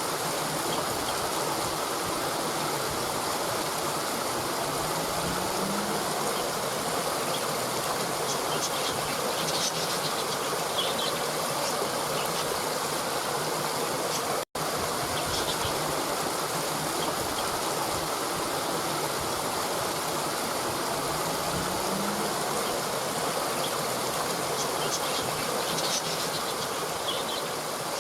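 Steady rushing of water from a waterfall or cascade, broken by a sudden brief dropout about halfway through. Faint high chirps come twice over the water.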